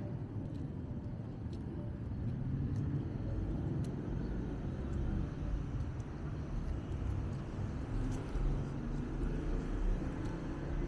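Steady rumble of road traffic on a city street, swelling slightly a couple of seconds in as vehicles pass.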